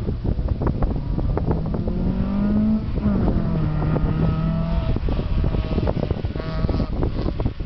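Honda Civic engine revving hard as the car pulls away. The pitch rises, drops sharply about three seconds in at a gear change, then holds. Wind buffets the microphone throughout.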